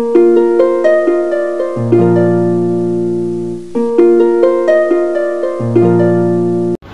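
Background music: a melody of plucked-string notes, the same phrase played twice, with low held bass notes coming in partway through each phrase. It cuts off suddenly just before the end.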